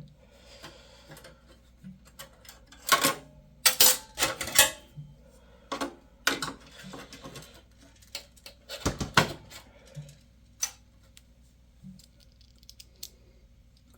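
Irregular small metallic clicks, clatter and knocks of computer parts being handled inside a PC case while expansion cards and header cables are fitted, with a busy spell a few seconds in and a heavier knock about two-thirds of the way through.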